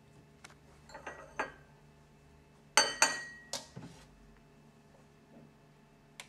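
Tableware being handled: light clicks, then two loud ringing clinks about three seconds in and a few duller knocks, as a vacuum coffee jug is reached for and lifted beside a cup and saucer. One more sharp click near the end.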